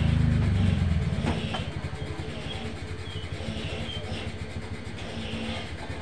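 A motorcycle passes close by, loudest in the first second and then fading away. A steady low throb continues underneath.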